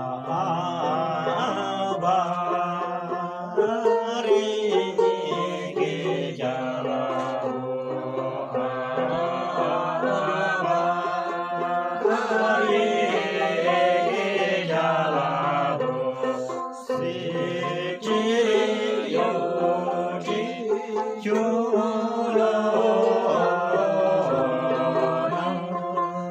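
Men singing an old Hyolmo chhyanglu folk song together, accompanied by a plucked Himalayan lute (dramyin) strummed steadily under the voices.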